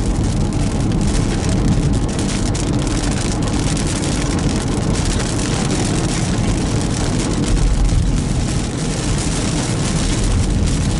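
Inside a car driving in heavy rain: a steady low road rumble and wet tyre hiss, with raindrops striking the roof and windshield as many small ticks.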